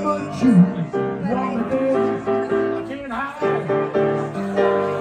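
Live music from a piano-led duo: held chords with a melody line sliding and bending in pitch over them.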